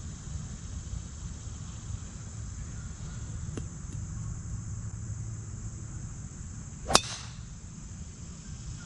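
Golf club striking a teed ball on a tee shot: one sharp crack about seven seconds in. A faint click comes a few seconds before it, over a steady low rumble.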